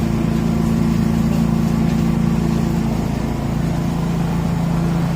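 Small engine of a motorized disinfectant sprayer running steadily, its pitch shifting slightly about three and a half seconds in.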